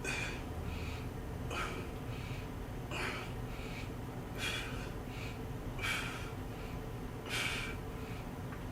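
A person breathing hard in a steady rhythm, one sharp hissing breath about every second and a half.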